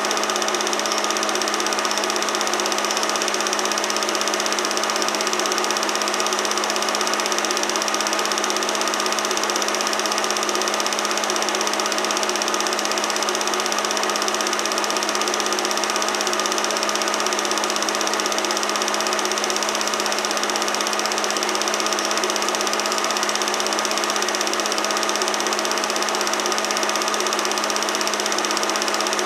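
Film projector running: a steady mechanical whir and hum with hiss, unchanging throughout.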